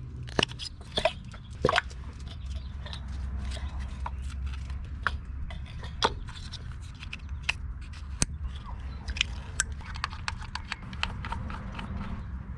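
Scattered sharp clicks and light knocks of hand and tool work in the engine bay while the ignition coils are swapped between cylinders, over a low steady hum.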